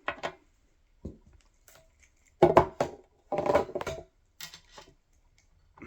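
Small clicks, knocks and clinks of tools and wiring being handled on a workbench, with two louder bursts of clattering about two and a half and three and a half seconds in.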